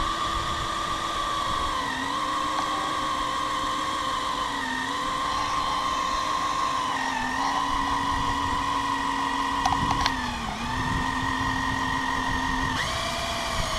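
Cordless drill turning a Transmate tapping machine's cutter through a pressurized 8-inch C-900 PVC water main, running steadily. Its pitch sags briefly every two to three seconds as the cutter is fed half a turn at a time into the plastic, and it steps up in pitch near the end.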